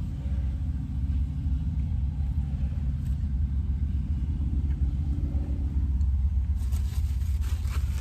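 Steady low rumble in a car's cabin. About two-thirds of the way in, a paper food wrapper starts rustling and crinkling.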